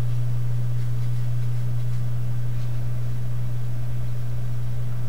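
Old Maxtor hard drive running steadily while HD Tach reads it sequentially, heard as an even low hum.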